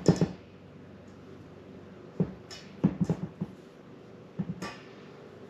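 Hands dredging a flounder fillet in flour in a stainless steel mixing bowl: a few short clusters of soft pats and thumps against the bowl, with brief rustles of flour.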